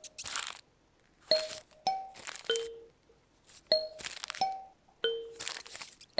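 Kalimba plucking single notes, with several short bursts of paper rustling between them.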